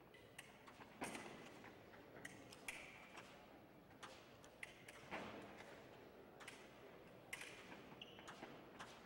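Faint scattered clicks and taps of a foil fencing bout, from feet striking the piste and light blade contacts, with a few short metallic pings. The sharpest knocks come about a second in, around five seconds in and again near seven and a half seconds in.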